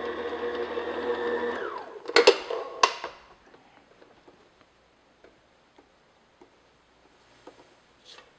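Stand mixer motor running steadily with its paddle in a steel bowl, then winding down and stopping about a second and a half in. Two loud metal clanks follow as the paddle is taken off, then faint scraping ticks of a spatula clearing dough from the paddle.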